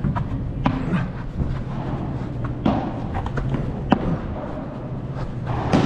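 Padel ball knocked back and forth with rackets and bouncing on the artificial-turf court during a rally: a series of short, sharp knocks at irregular intervals, about half a second to a second apart, over a steady low hum.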